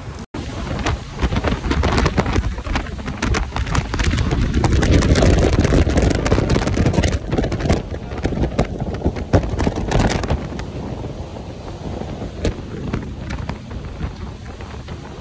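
Strong wind buffeting the microphone in gusts, a rough crackling rush with a low rumble, heaviest through the middle stretch.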